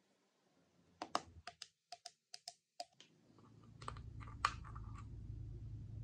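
Keys of an Ajazz AK820 Pro mechanical keyboard clicking: a quick run of about nine sharp clicks over two seconds, then two more. A low hum comes up in the background from about halfway.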